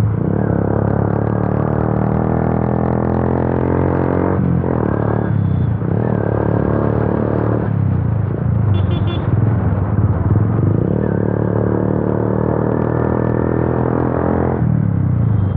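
Yamaha FZ V2's single-cylinder engine running loud through an aftermarket Akrapovic exhaust with the dB killer removed, pulling under way. The engine note climbs, falls away and climbs again several times as the rider accelerates and shifts.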